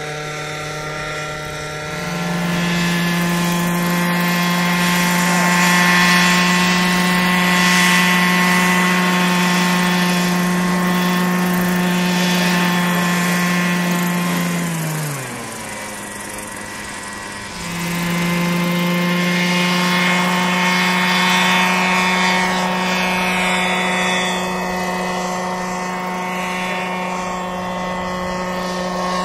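Radio-controlled scale Bell 47 model helicopter flying: a loud, steady pitched drone of engine and rotors. About halfway through the pitch falls and the sound fades, then the drone returns abruptly at full pitch a couple of seconds later.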